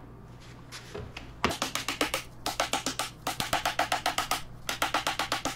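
Mallet tapping rapidly on the wooden edge of the tabletop, in three quick runs of about seven light taps a second with short pauses between them.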